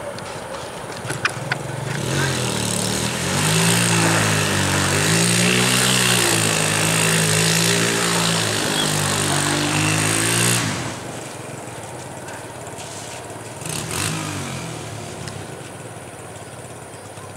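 ER9M electric train's traction equipment running with a loud whine that rises and falls over a strong hiss, then cuts off abruptly about ten seconds in. A shorter, fainter swell of the same whine comes a few seconds later.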